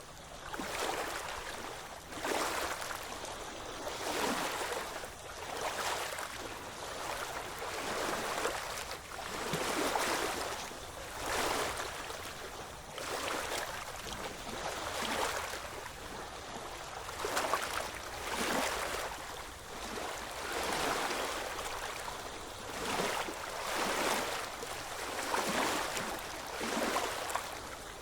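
Small waves lapping and washing against the shore, a new surge of water every second or so.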